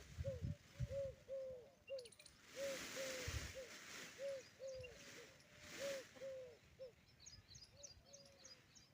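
Peahen calling in a long run of short, low, arched notes, about two a second, that fade out near the end, with faint high chirps of a small bird over the last couple of seconds.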